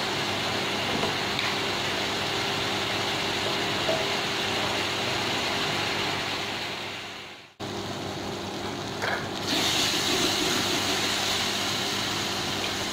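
Tomatoes and onions sizzling in oil over the steady hum of an induction cooktop's cooling fan. The sound fades out about seven and a half seconds in and cuts straight back, and the sizzle is louder and brighter from about nine and a half seconds.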